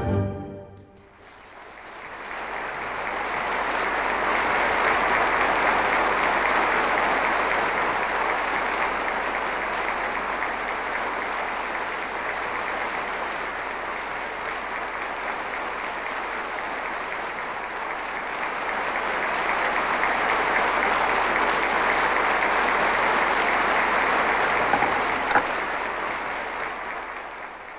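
Audience applause swelling in after the last notes of string music. It holds steady for over twenty seconds with a slight dip in the middle, then fades away near the end.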